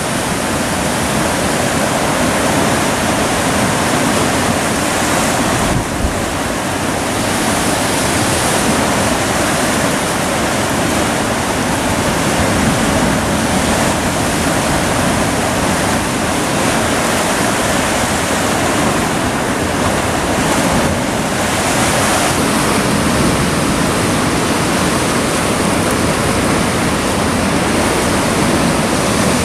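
Sea surf breaking and churning against a rocky shore: a loud, steady rush of water that dips briefly about six seconds in and again past the twenty-second mark.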